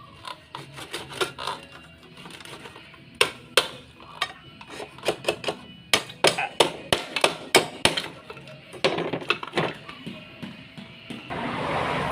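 Irregular knocks and taps of hand tools on washing machine parts during disassembly, some quick runs of strikes among single hits. A short rush of noise starts near the end.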